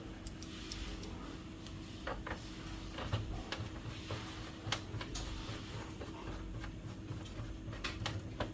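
Faint scattered clicks and small taps of screwdriver work on the plastic frame of a Brother DCP-T310 inkjet printer, as screws are driven in during reassembly, over a steady low hum.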